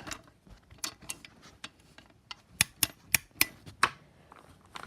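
About a dozen irregular sharp clicks, the loudest in a quick run between about two and a half and four seconds in, as a Gentex Commander 3 fire alarm is handled and its tone setting is switched to slow whoop.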